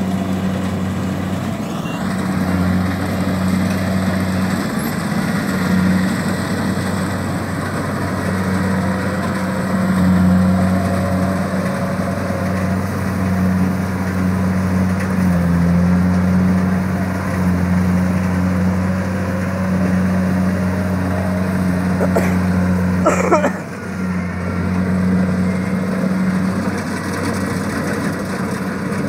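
Kubota rice combine harvester's diesel engine running steadily while it harvests, a constant drone with a brief rattling knock about three-quarters of the way through.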